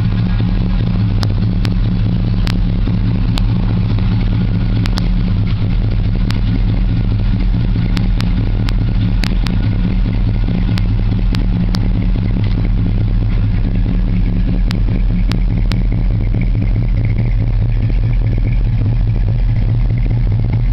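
The 1986 Oldsmobile Cutlass Supreme's 350 Rocket V8 idling steadily, with a few scattered sharp clicks over it.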